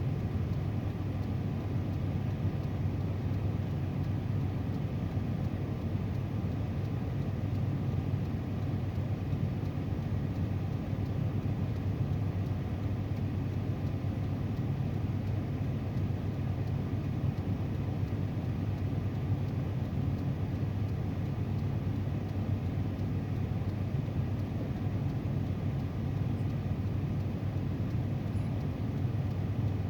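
Car running, heard from inside the cabin as a steady low rumble with no change in pitch or level.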